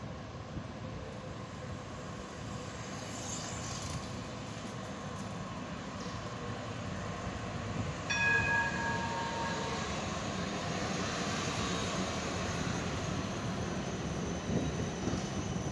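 A D-class tram's standard mechanical gong struck once about eight seconds in: a single bright bell tone with several ringing overtones that dies away over about a second and a half. Around it the tram's running noise grows steadily louder as it approaches and passes.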